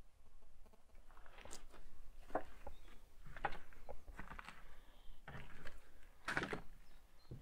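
Slow footsteps crunching, about one step a second.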